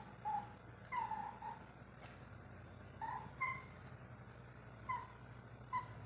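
Cat mewing: about six short, high-pitched mews spread over a few seconds, over a faint steady low hum.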